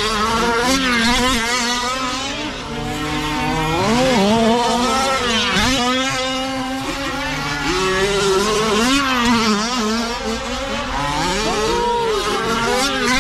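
Several 1/5-scale petrol RC trucks racing, their small two-stroke engines revving up and down as they accelerate and brake around the track. The overlapping engine whines keep rising and falling, one passing loud and close about four to six seconds in.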